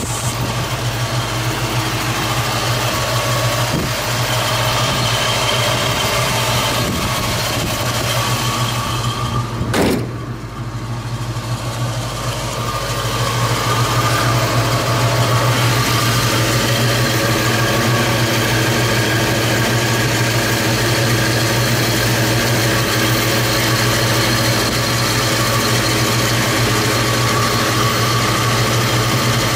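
Ford 289 V8 idling steadily. There is one sharp click about ten seconds in, and the engine sounds a little louder from about fourteen seconds on.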